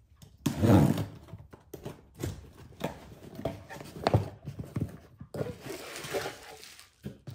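Cardboard shipping box being opened by hand. A loud burst of cardboard and tape scraping comes first, then a run of light knocks and thuds as the flaps are pushed open. Near the end, bubble wrap crinkles as the wrapped item is lifted out.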